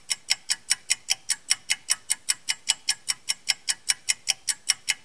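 Clock ticking fast and evenly, about five ticks a second, with no other sound behind it.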